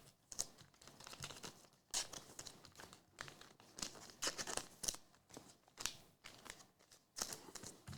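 Faint crinkling and rustling of plastic wrapping, in many short irregular bursts, as cards and packaging are handled.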